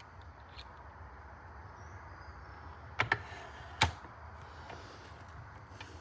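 Small hard pen parts clicking together as the resin pen is assembled: two sharp clicks about three seconds in and a louder one a moment later, over a low steady hum.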